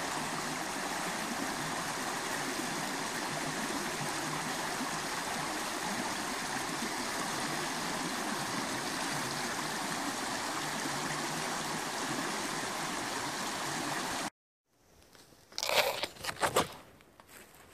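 Fast, shallow stream rushing steadily over rocks. After a cut near the end come a few sharp crunches and crackles of dry fallen leaves underfoot.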